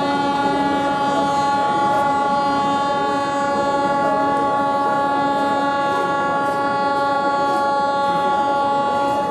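Locomotive horn sounding one long blast at a steady pitch.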